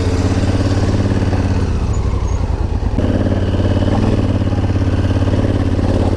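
Honda Africa Twin's parallel-twin engine running at low revs under light throttle on a rocky dirt track. The engine note dips briefly about two seconds in and picks up again about a second later.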